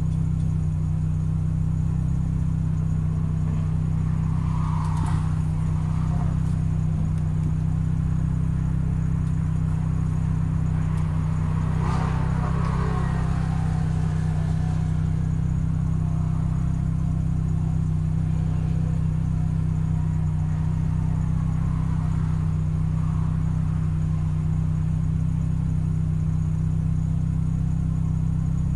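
Car engine idling steadily at a constant low pitch, heard from inside the cabin of the car while it sits stopped.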